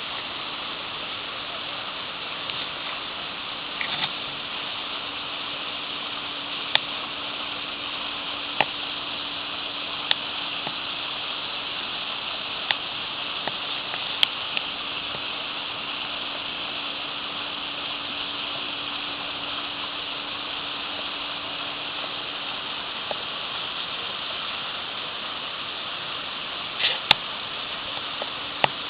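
Steady rush of a waterfall whose flow is partly frozen, with a few sharp ticks scattered through it.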